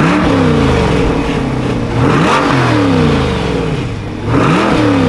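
C8 Corvette's 6.2-litre LT2 V8 on its stock, pre-upgrade exhaust, revved three times in quick blips, the revs falling back between each.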